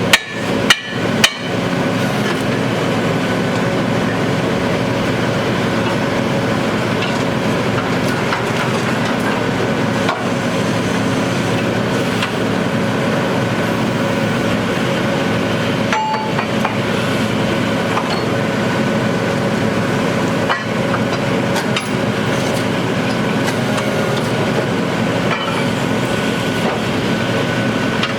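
Three or four sharp hammer-like knocks in the first second or so. Then a borehole drilling rig's engine runs steadily with an even, droning hum.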